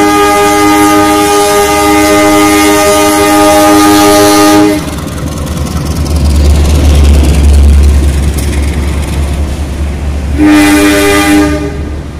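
A diesel locomotive hauling a passenger train holds a long horn blast that cuts off about five seconds in. Its engine's deep rumble then swells as the locomotive passes close below. A second, shorter horn blast of about a second comes near the end, and then the sound fades as the coaches run by.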